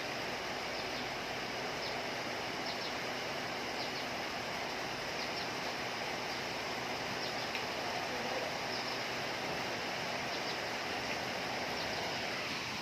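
Steady heavy rain falling, an even hiss, with scattered faint short high ticks through it.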